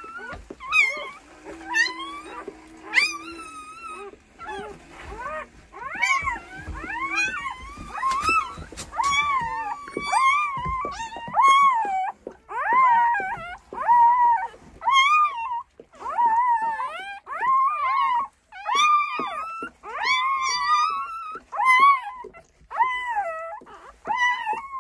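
Newborn Belgian Malinois puppies squealing: a long run of short, high, thin cries, each rising and falling, coming about once a second and more densely from about eight seconds in. A lower, steady whine sounds briefly about two seconds in and again near six seconds.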